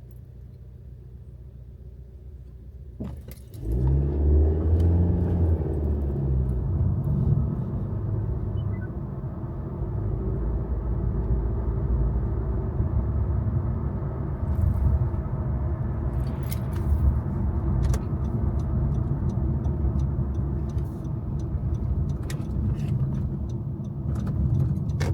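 Car driving, its engine and road noise heard from inside, a steady low rumble. About four seconds in it suddenly gets much louder and stays loud.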